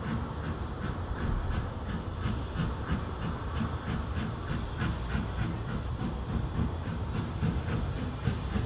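Industrial steam locomotive approaching while working a train, its exhaust beating in a steady rhythm. Wind rumbles on the microphone underneath.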